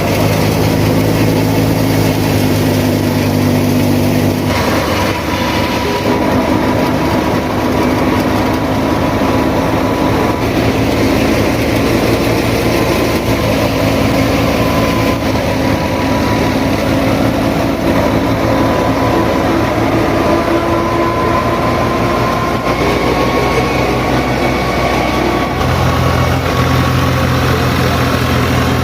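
A vehicle engine running steadily and loudly, with a rattling, rumbling noise. Its low hum changes abruptly about four seconds in and again near the end.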